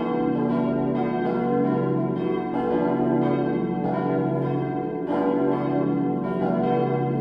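Full peal of four cast-steel church bells from 1922, tuned B, D, E and F sharp, swinging and striking in overlapping succession over a steady low hum. The tuning is poor: the low B bell stands out, and the D bell's clapper has long struck mostly on one side only.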